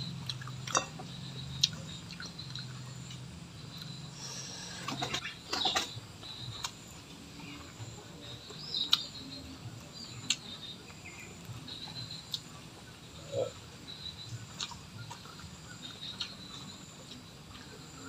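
Close-miked mukbang eating sounds: chewing, lip smacks and scattered sharp clicks while eating smashed fried pigeon and rice by hand. Short bird chirps come now and then in the background.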